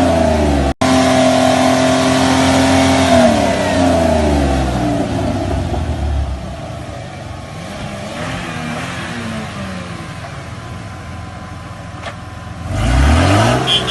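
Toyota Land Cruiser 80 Series engine revving. It holds high revs, drops away about three seconds in, runs lower through the middle, then revs up again near the end. The sound cuts out for an instant under a second in.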